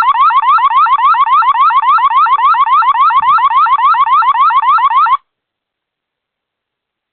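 Wyze Cam v3 security camera's built-in siren sounding loudly: a fast string of rising electronic whoops, about six a second, that cuts off suddenly about five seconds in.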